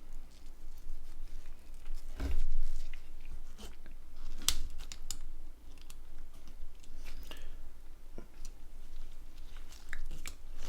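Scattered small clicks and taps of phone parts and connectors being handled and fitted, with low handling bumps; the sharpest click comes about four and a half seconds in.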